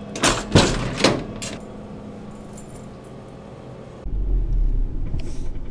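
Keys jangling and metal clicks at a vending machine's door lock, followed by the machine's low hum. About four seconds in, a steady low rumble of a truck driving, heard inside the cab.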